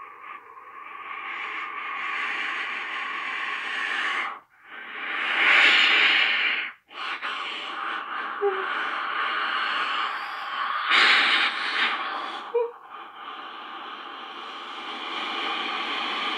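A person's stifled, wheezing laughter behind a hand held over the mouth: breathy hissing exhalations, with two louder bursts about five and eleven seconds in and brief catches of breath between them.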